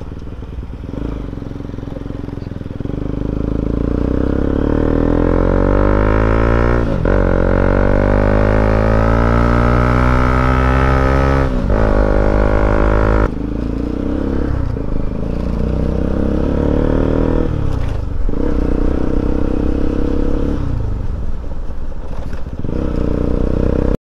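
Motorcycle engine running while riding, its pitch climbing as it accelerates and dropping sharply a few times at gear changes.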